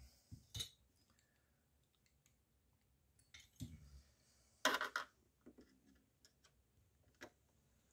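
A few faint, scattered clicks and light knocks from hands working inside the RC bait boat's hull, the loudest a little under five seconds in.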